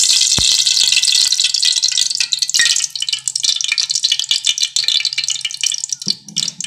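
Cooking oil sizzling and crackling as it is poured into a hot wok: a loud, dense hiss that thins out after a few seconds into rapid separate pops and crackles.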